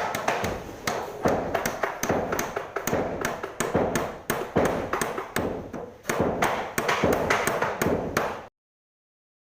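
Rapid, irregular sharp taps and knocks, several a second, which cut off suddenly about a second before the end.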